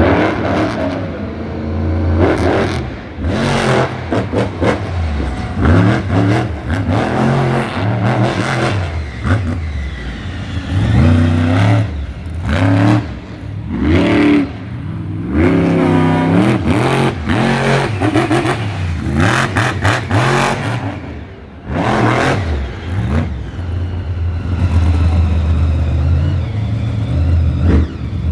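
Monster truck engine revving hard over and over, its pitch climbing and falling with each burst of throttle.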